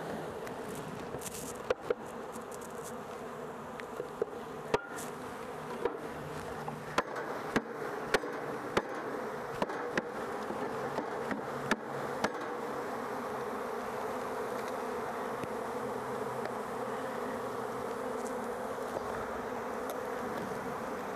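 Loose honey bees from a package buzzing in a dense, steady hum. Over roughly the first half there is a series of sharp taps or clicks; after that the buzzing continues on its own.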